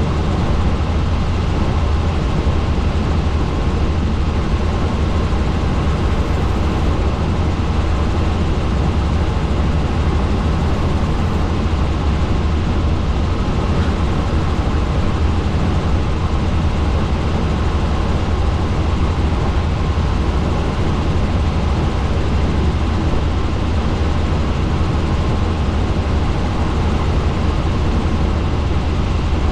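Helicopter in steady flight: constant rotor and engine noise with a strong low drone.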